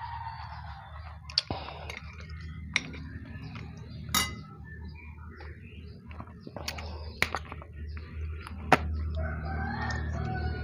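Chickens in the background, with a rooster crowing near the end, over a low steady hum. Scattered sharp clicks and taps, typical of someone eating with a spoon from a bowl.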